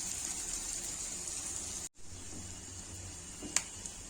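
Beans, dal and cashews sizzling steadily as they fry in oil in a pan. The sound cuts out for an instant about two seconds in, and there is a single sharp click near the end.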